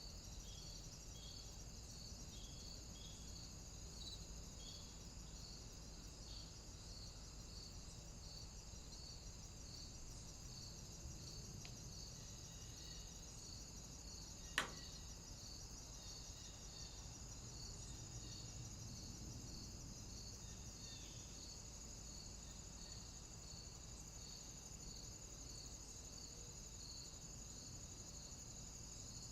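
Faint insect chorus: a steady high trill with a regular pulsing chirp a little more than once a second. A single sharp click comes about halfway through.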